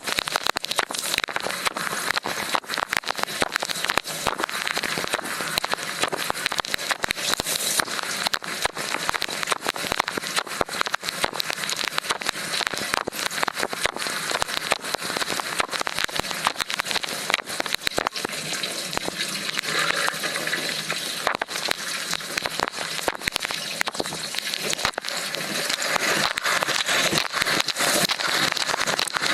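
Wash cycle of an LG dishwasher heard from a microphone inside the tub: a steady rush of spraying water with dense crackling spatter of droplets striking close by, over a thin steady high whine.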